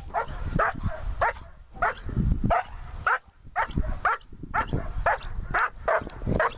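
Black German Shepherd barking hard and repeatedly, about two barks a second, while being agitated by a helper in Schutzhund protection training.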